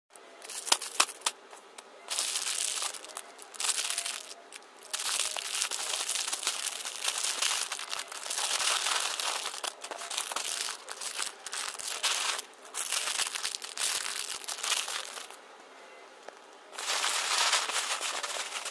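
Loose plastic LEGO pieces being raked and stirred by hand on a table: rattling in stretches of a second or more, broken by short pauses.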